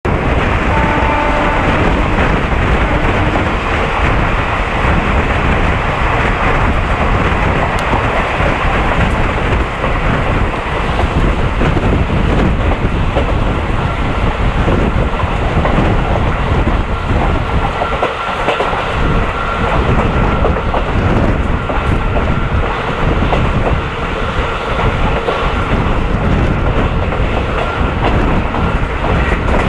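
Rumble and wheel clatter of a train coach running on the track, heard from the coach directly behind a WCAM1 electric locomotive. Partway through, a steady high whine from the locomotive rises out of the noise as the train accelerates, and it grows plainer toward the end.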